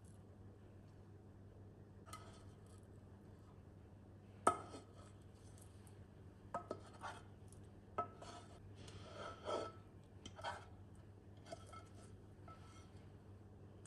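Spatula scraping the last of a thick barley porridge out of a bowl onto a plate, with scattered clicks and taps of the spatula against the bowl. The sharpest knock comes about four and a half seconds in, and a run of smaller taps and scrapes follows over the next several seconds.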